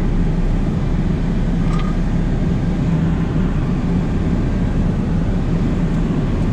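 Vehicle engine and tyres running steadily while driving across sand, heard inside the cab as a steady low drone.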